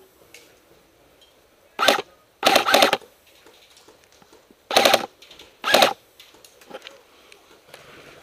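Airsoft electric rifle firing four short full-auto bursts, each a rapid string of shots. The longest burst comes about two and a half seconds in.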